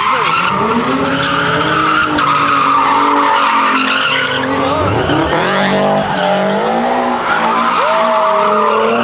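Nissan 370Z's V6 engine held at high revs with the revs swinging up and down, and its rear tyres squealing continuously as the car spins donuts.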